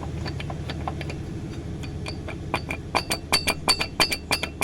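Loose crankshaft reluctor wheel on a Chevrolet Celta 1.0 8-valve engine being worked by hand, clinking metal on metal with a short ringing note, a few clicks at first and then a quick rattle of about four to five clinks a second from about halfway in. The wheel has come completely loose. A steady low hum runs underneath.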